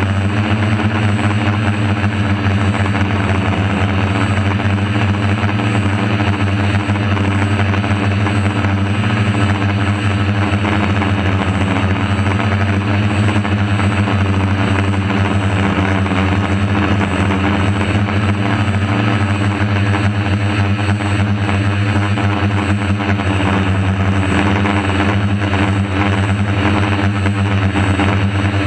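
DJI F450 Flame Wheel quadcopter's four brushless motors and propellers buzzing steadily while hovering, heard up close from on board. The buzz is loud and even, with a layered hum.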